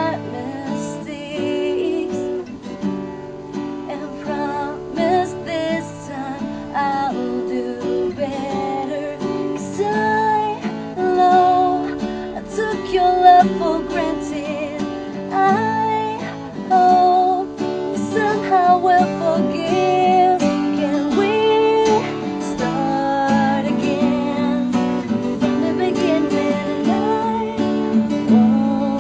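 Acoustic guitar strummed and picked, accompanying a woman singing a pop song live.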